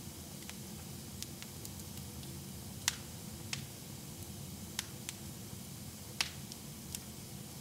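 Wood fire in a fireplace crackling, with sharp irregular pops, the loudest about three seconds in, over a low steady rustle of the burning logs.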